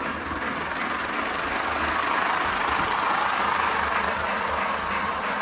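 Lionel Pennsylvania Flyer Lion Chief O-gauge toy train running on its track: a steady whirring, rumbling running noise that grows a little louder in the middle, then eases.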